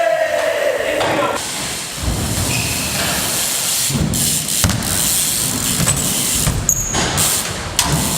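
BMX tyres rolling hard across skate-park ramps, a steady hiss with a few sharp knocks from landings and bike hits.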